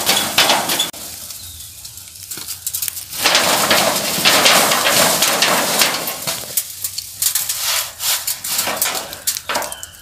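Hand rubbing and brushing across a corrugated metal roofing sheet scattered with small seeds, a crackling scrape full of sharp ticks, in three spells.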